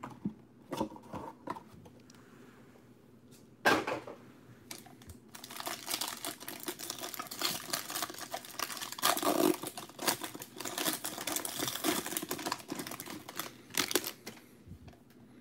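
A few light clicks and one sharp knock as the card box is handled. From about five seconds in, the foil wrapper of a Bowman Chrome trading-card pack is torn open and crinkled by hand for about nine seconds.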